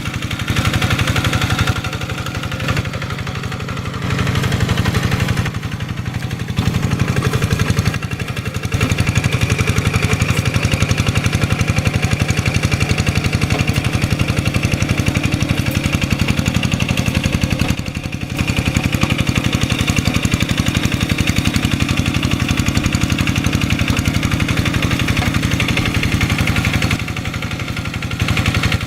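Two-wheel hand tractor's diesel engine running steadily with a fast, even beat under the load of plowing deep paddy mud. Its sound briefly drops several times, near the start, around a third of the way in and near the end, as the load or throttle eases.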